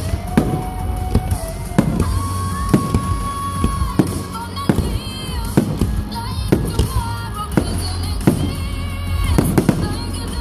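Fireworks display bursting in a run of sharp, irregular bangs, roughly one or two a second, over loud music.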